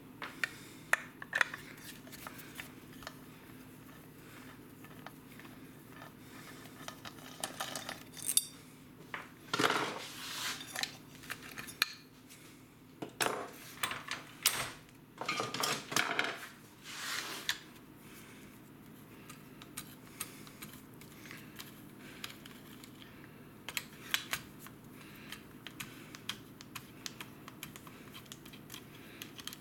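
Hand tools and loose parts clinking and knocking against the plastic housing and metal engine parts of a Stihl MS462 chainsaw being taken apart: scattered clicks and clacks, with a busier stretch of louder handling noise around the middle.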